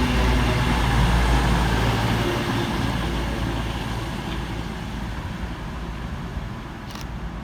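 Class 221 Super Voyager diesel-electric unit's underfloor diesel engines running as it draws into the platform, a steady low hum that fades away over several seconds. One short sharp click near the end.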